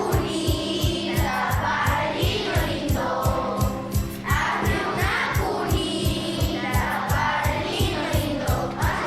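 A song with voices singing a melody over a quick, steady beat.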